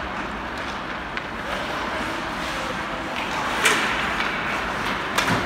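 Ice hockey play: a steady hiss of skates on the ice and general rink noise, with scattered sharp clacks of sticks and puck, the loudest a little past halfway.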